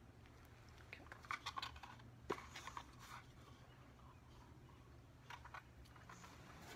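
Dogs licking and grooming themselves: faint wet smacking and clicking in quick clusters, from about a second in to about three seconds in, and again briefly a little after five seconds.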